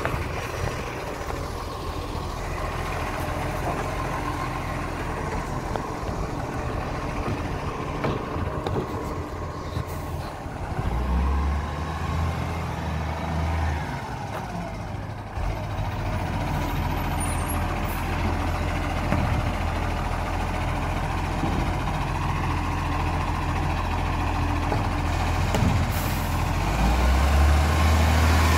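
Iveco ACCO side-loading garbage truck's diesel engine running as the truck drives along the street, a steady low drone that grows louder as it pulls up close near the end.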